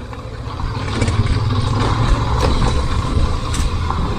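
Yamaha SZ motorcycle's single-cylinder engine running as it rides over a rough dirt track, getting louder over the first second and then steady.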